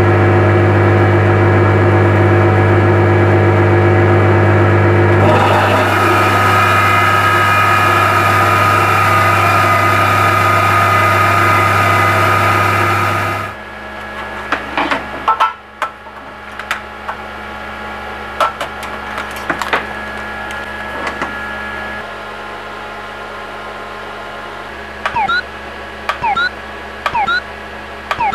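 CNC milling machine spindle running with a steady whine, changing tone about five seconds in and shutting off suddenly about halfway through. After it come a few clicks over a quieter hum, then near the end a run of short chirping moves a little under a second apart from the machine's axis motors being jogged.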